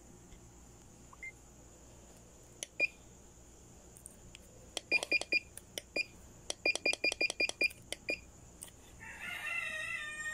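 Handheld motorcycle fuel-injection diagnostic scan tool beeping as its buttons are pressed: short electronic key beeps with button clicks, a couple at first, then quick runs of several a second while scrolling through its menus.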